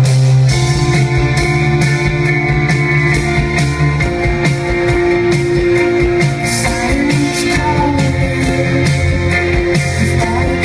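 A band playing a pop-rock song live: keyboard chords over a steady drum beat, with a woman singing into the microphone, loud and full in the hall.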